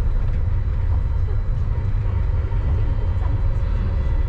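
Cabin running noise of a Uijeongbu light rail car moving along its elevated guideway: a steady low rumble from the rubber-tyred running gear, with faint steady high-pitched whines from the drive equipment.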